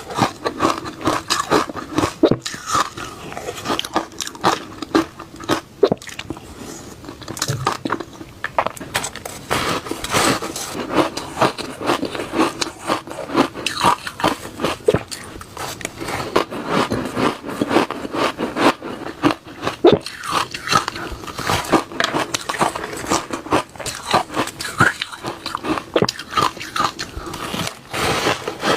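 A person biting and chewing shaved ice close to the microphone: a steady run of crisp crunches, several a second, with no pause.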